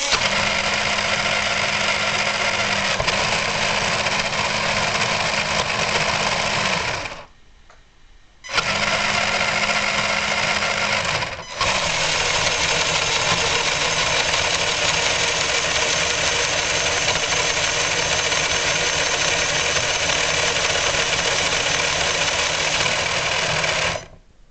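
RC model paddle steamer's electric drive and machinery running on the bench, a steady mechanical whirr over a low hum. It cuts out for over a second about seven seconds in, starts again, and drops briefly a few seconds later.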